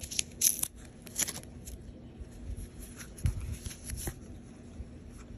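A paper band being slid off a stack of oracle cards: a few quick, sharp paper scrapes and rustles in the first second and a half, then softer bumps and rustles as the cards are handled.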